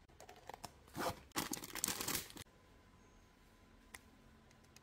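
Plastic packaging crinkling and tearing in quick rustling bursts for about two seconds, then a single faint click near the end.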